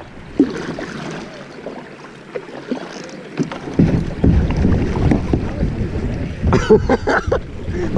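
Kayak moving through a shallow creek riffle: water rushing and splashing around the plastic hull. The sound turns louder and rougher about halfway through.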